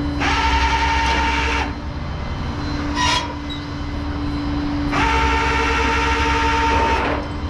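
Flatbed tow truck's hydraulic winch running under load in two bursts as its control is worked, giving a loud, high, steady whine over the truck's steady engine hum. A short blip of the same whine comes in between.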